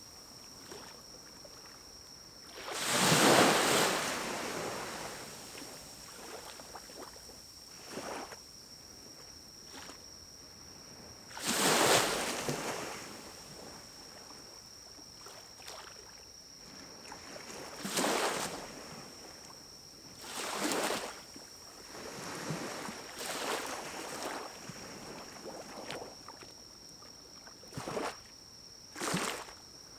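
Pine cones burning in a small wood-burning camp stove: irregular rushing whooshes of about a second each, the two loudest about three and twelve seconds in, with a few sharp pops near the end. A faint steady high whine runs underneath.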